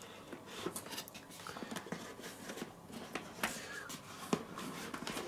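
Faint rustling and scattered small clicks and taps of hands handling a computer motherboard in its cardboard box.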